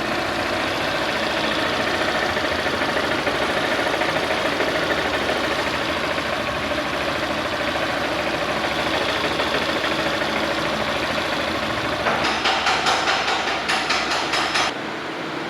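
Honda Bros 160 single-cylinder engine idling steadily. About twelve seconds in, a louder rhythmic clatter runs for a couple of seconds, then the engine sound stops shortly before the end.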